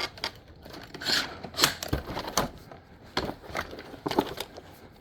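A box being closed by hand: a run of irregular knocks and clicks, with a brief rustle about a second in and a dull thump near two seconds.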